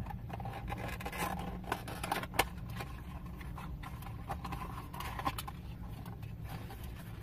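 A mystery snow globe's cardboard box and packaging being opened by hand: scattered scrapes, taps and rustles of cardboard and paper, over a low steady hum.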